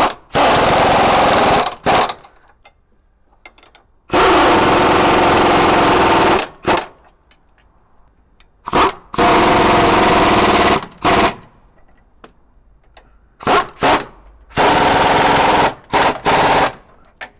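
Impact wrench hammering in repeated bursts, snugging up the radius rod bracket nuts and bolts. Four longer runs of one to two and a half seconds, with short blips between them.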